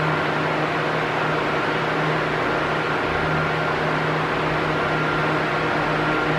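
Arno Silence Force 40 cm electric fan running at maximum speed: a steady rush of air over a low motor hum, with a faint steady high tone.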